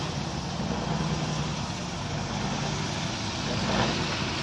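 Tatra 6x6 trial truck's diesel engine running under load as the truck climbs over a dirt mound, a steady low rumble that swells briefly near the end.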